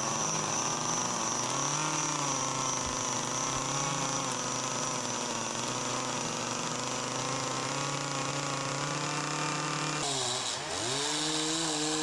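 Chainsaw running under load as it carves wood, its engine pitch wavering with the cut. About ten seconds in the engine speed drops sharply and climbs back up.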